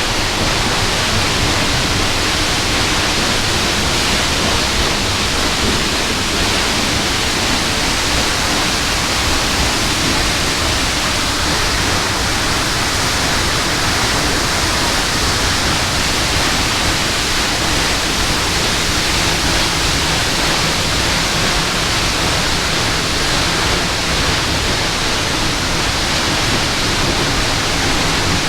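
Waterfall: a steady, loud rush of falling water that holds even throughout.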